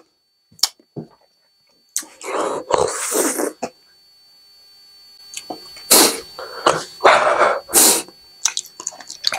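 A man's pained, rushing breaths and sniffles from the burn of the Paqui One Chip Challenge pepper chip. A long loud exhale starts about two seconds in, and a run of short sharp breaths follows over the last few seconds.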